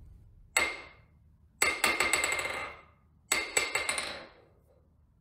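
Metal struck repeatedly, ringing after each blow: a single blow, then two quick runs of several blows.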